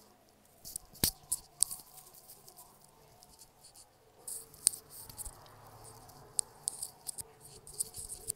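Hands rubbing a skincare product between the palms and over the face, heard as soft rubbing with scattered sharp crackles and clicks.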